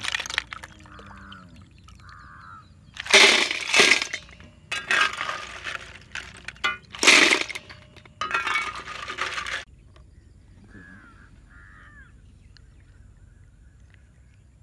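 Boiled snail shells clattering against stainless steel as they are scooped with a perforated steel ladle and tipped into a steel bowl, in four loud rattling bursts starting about three seconds in.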